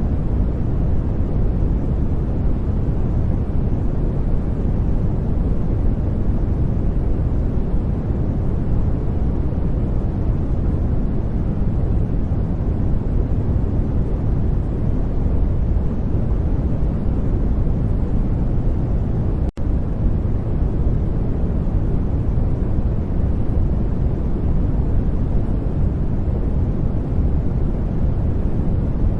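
Steady noise track, heaviest in the low end so it sounds like a deep, even rush. It briefly cuts out for a split second about twenty seconds in.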